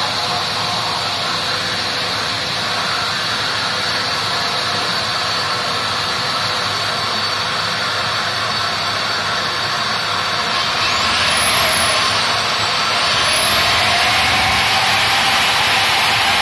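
Steady rushing of a vacuum dust extractor hooked to the drill rig. About ten seconds in, the Fortezzo SCY-1520 diamond core drill motor starts: a high whine rises, dips, then climbs to a steady high pitch, and the sound gets louder.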